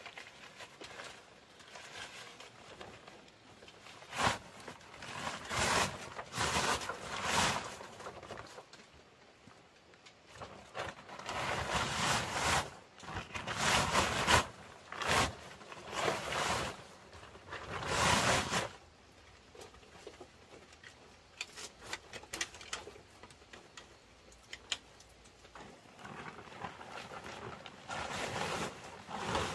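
Plastic tarpaulin rustling and crinkling as it is pulled and stretched into place, in several bursts of swishing, then fainter clicks and taps near the end.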